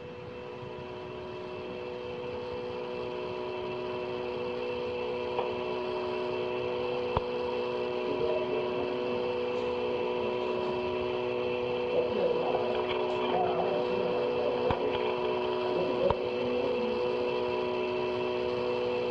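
Open telephone line with a steady electrical hum and hiss, growing slowly louder, with a few sharp clicks on the line.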